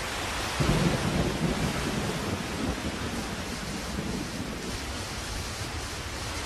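Steady rain hissing, with a low roll of thunder that swells about half a second in and slowly dies away.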